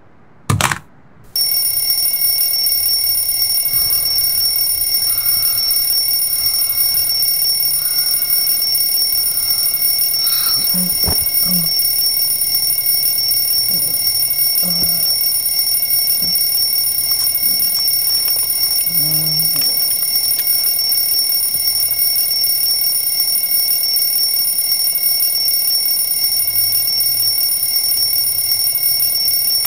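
Alarm clock ringing without a break, a loud, high, steady ring that starts about a second in after a brief blip and cuts off suddenly at the end.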